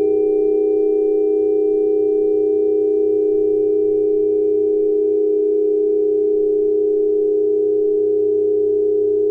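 Steady electronic tone at the 417 Hz Solfeggio frequency, held unchanging as a smooth drone, with a few fainter steady overtones above it.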